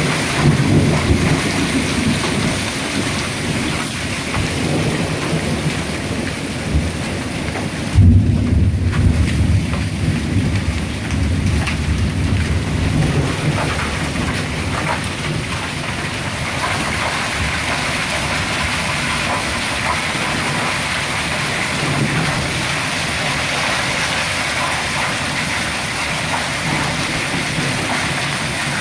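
Hail and rain falling hard in a steady hiss, pelting the ground and hedges. A deep rumble of thunder swells about eight seconds in and fades over the next few seconds.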